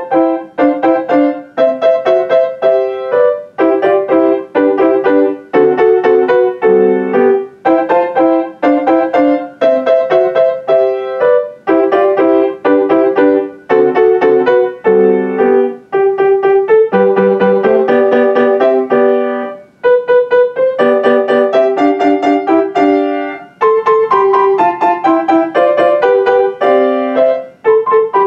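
Solo grand piano playing a light classical piece in quick, short phrases, with a brief pause about twenty seconds in.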